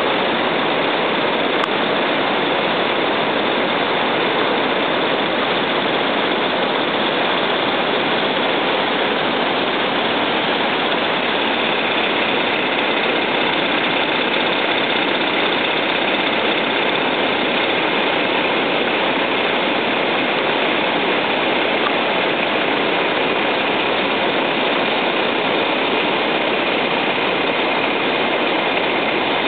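Muddy floodwater of a swollen river pouring over a weir and rushing downstream: a loud, steady noise that does not let up.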